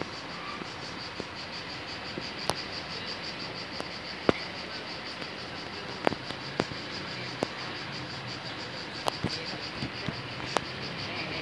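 Insects chirring in a steady, high, evenly pulsing drone, with a few sharp clicks now and then.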